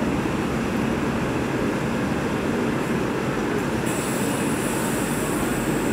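Kerala Express passenger train rolling past on a far track: a steady rumble of coach wheels on the rails, with a high hiss joining about four seconds in.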